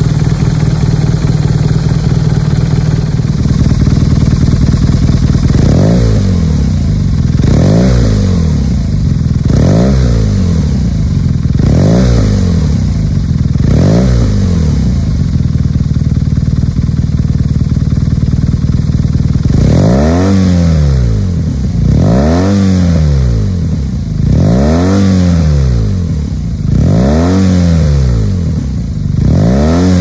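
BMW R nineT's 1170 cc boxer twin breathing through an aftermarket titanium slip-on silencer, idling and then revved with the throttle. Five quick blips come about two seconds apart, the engine settles back to idle for a few seconds, then five bigger revs follow about every two and a half seconds, each rising and falling back.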